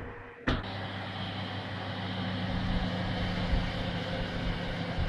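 Oven door shutting with a sharp clunk about half a second in, then the oven running with a steady low hum.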